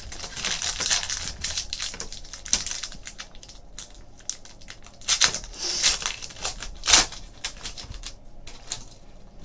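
Foil trading-card pack wrapper crinkling and tearing as it is peeled open by hand and the cards are pulled out, with a few sharper crackles about five to seven seconds in.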